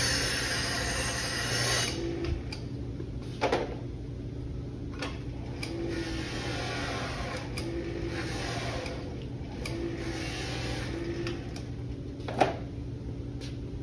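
Bench buffing machine running: for about the first two seconds a trombone part is held against the spinning buffing wheel, giving a harsh hiss, which then stops and leaves the motor's steady hum. A few light clicks and knocks come over it, the sharpest near the end.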